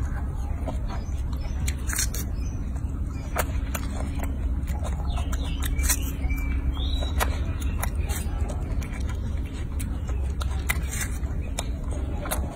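Young macaque biting and chewing watermelon: irregular wet crunching clicks over a steady low rumble, with a short high chirp about six seconds in.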